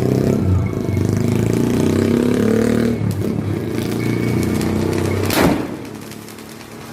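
An engine running steadily, then a short sharp noise about five seconds in, after which the engine sound drops away.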